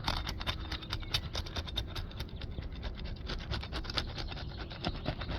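Asphalt shingle being pried up from the course below, its sealant strip crackling and scratching as it breaks loose in a run of small rapid clicks. The seal holds with a lot of resistance.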